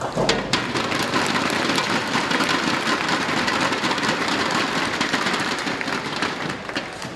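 Bowling ball crashing into the ten pins at the start, knocking down the remaining pins for a spare, followed at once by a crowd applauding for several seconds, easing off near the end.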